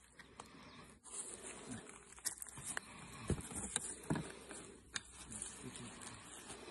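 Handling sounds at an open beehive: wooden hive frames and a cardboard sheet knocking and scraping as they are laid over the top bars, with about half a dozen sharp clicks and taps between two and five seconds in.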